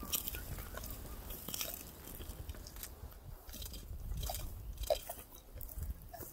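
Cheetah chewing and biting into a fresh kill, with irregular crunches of meat and bone.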